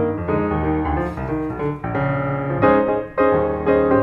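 Background piano music, a melody of notes changing every half second or so.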